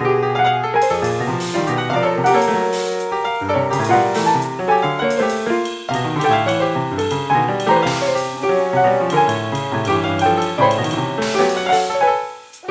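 Piano playing a free-jazz piece: dense chords and runs moving across the low and middle range, thinning out briefly just before the end.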